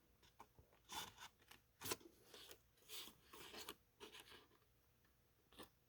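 Scissors snipping cardstock: a faint series of short, separate cuts, about six or seven over a few seconds.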